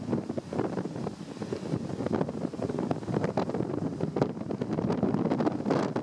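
Strong gale-force wind buffeting the microphone in rapid, irregular gusts, a dense rumbling noise with no letup.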